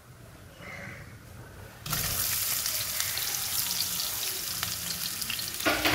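Sliced onions dropped into hot oil in a stainless steel pressure cooker, setting off a sudden sizzle about two seconds in that carries on steadily.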